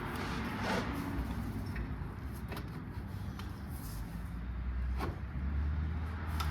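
A few faint, irregularly spaced clicks and knocks from a pry bar worked against the engine to break a bolted part loose, over a steady low rumble.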